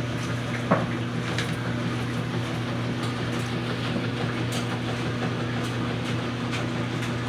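Steady machine hum with a low drone and hiss, like an appliance or fan running, with a single sharp click about a second in.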